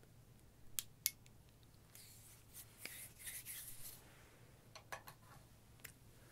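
Faint close-up handling noises: two sharp clicks about a second in, soft rustling through the middle, and a few more clicks near the end.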